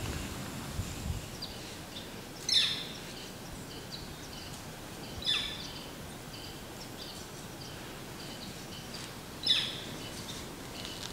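A bird giving three loud, harsh calls that slide downward in pitch, each a few seconds apart, over softer scattered chirps from small birds.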